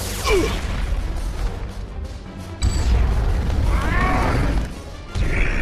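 Cartoon action-scene soundtrack: dramatic music under heavy rumbling booms and impact effects, with a sudden loud hit about two and a half seconds in and sweeping effects a little later.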